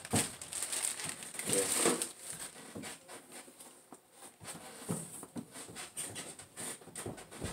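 Plastic bag crinkling as a wrapped RC truck body is handled, then rustling and light clattering as hands rummage through loose parts in a cardboard box.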